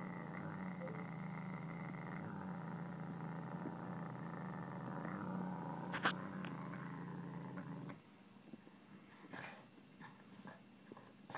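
Savannah cat growling over a piece of raw pork it is eating: one long, low, unbroken growl that stops abruptly about eight seconds in. After that come faint scattered clicks of chewing.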